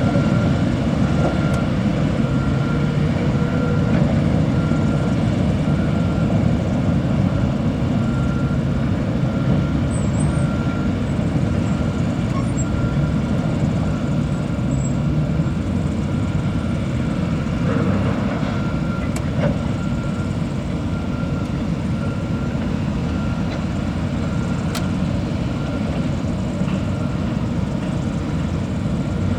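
A heavy engine running steadily, with a faint repeating beep over it.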